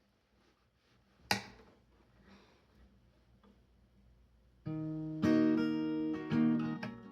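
A sharp click, then acoustic guitar begins about two-thirds of the way in, playing strummed chords, the intro of a song cover.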